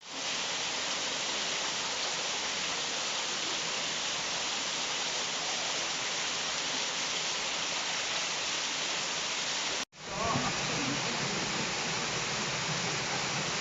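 Waterfall: a steady rush of falling water. About ten seconds in it cuts out for an instant, then runs on.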